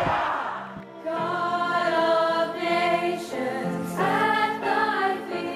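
A choir of schoolgirls singing, coming in about a second in after a short stretch of loud crowd noise fades out.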